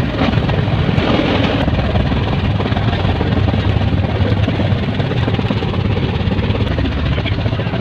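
Passenger train running at speed: a steady, loud low rumble with rushing noise over it.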